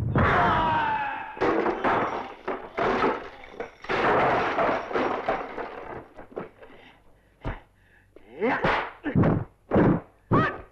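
Kung fu film fight sound effects: dubbed-in punch and kick impacts and swishing whooshes. There is a lull in the middle, then a quick run of about half a dozen sharp hits near the end.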